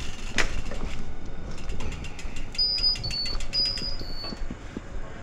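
Four short electronic beeps, alternating between a higher and a slightly lower pitch, about halfway through, over light ticking, with a sharp click near the start.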